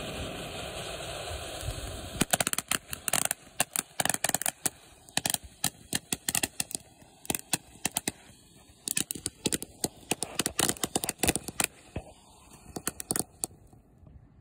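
Ground fountain firework spraying with a steady hiss, which after about two seconds turns into rapid, irregular crackling pops that go on until shortly before the end.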